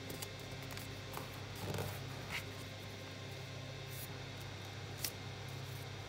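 Origami paper rustling and creasing under the fingers as a paper bird is folded, with a brief crinkle about two seconds in and a sharp tick about five seconds in, over a steady low hum.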